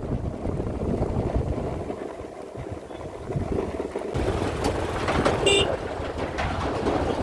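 Steady low rumble of a moving vehicle with wind noise on the microphone, and a brief high-pitched tone about five and a half seconds in.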